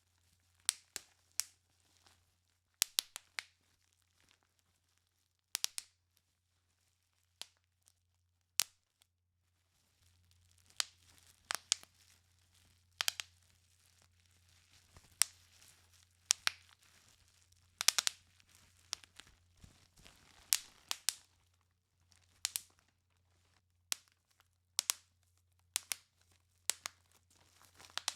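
Bubble wrap being popped by hand: sharp single pops, a few at a time with pauses between them at first. From about ten seconds in the pops come more often, over a crinkling rustle of the plastic sheet.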